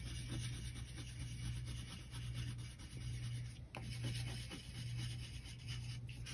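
Wax crayon rubbing over drawing paper in small round colouring strokes, a steady scratchy rub that swells and fades about once a second.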